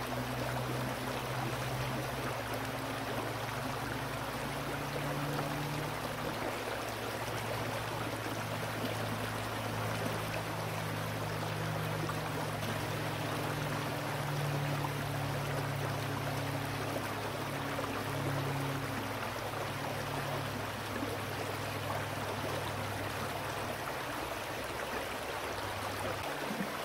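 Shallow river water running over stones in a steady rush, with a low droning hum underneath.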